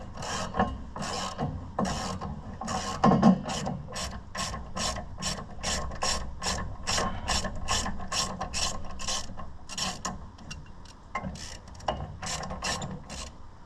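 Hand ratchet wrench being swung back and forth to run off a bolt or nut, its pawl clicking in quick, even strokes about three a second. The strokes thin out and stop near the end.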